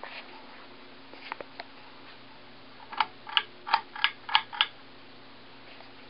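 SMC U52 ceiling fan motor humming steadily as the fan picks up speed. Midway there is a run of six sharp clicks, about three a second.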